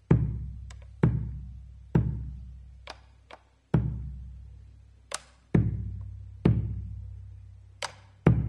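Bombo legüero played with two wooden sticks: deep strikes on the hide head about once a second, each ringing away slowly, with sharp, short clicks of a stick on the wooden rim between them.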